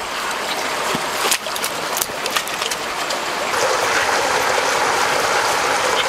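Shallow stream running over rocks. A few sharp knocks come in the first half, and the water sound grows steadier and fuller after about three and a half seconds.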